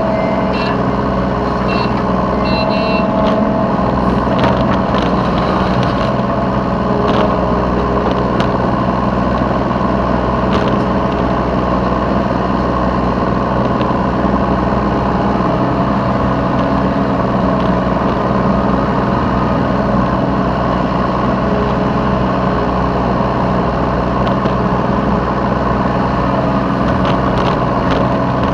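Yanmar B3Σ mini excavator's diesel engine running steadily at working revs, heard from the operator's seat, with a few short knocks and clanks.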